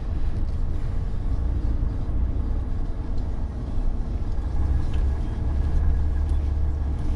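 Volvo FMX truck's diesel engine idling while stopped in traffic, a steady low rumble.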